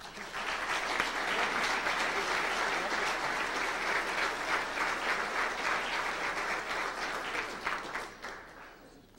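Audience applause from a large crowd of banquet guests. It swells in at once, holds steady for about eight seconds and dies away near the end.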